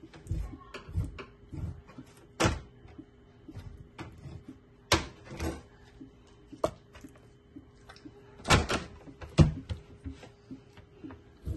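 Scattered kitchen knocks and clatter from handling a plastic bowl and a metal pot of raw chicken, about half a dozen louder knocks among lighter clicks, over a faint steady hum.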